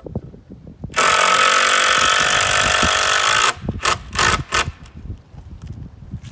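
Cordless drill motor running at full speed for about two and a half seconds, then three short trigger bursts, as when driving a screw and seating it. Light knocks and handling noise surround it.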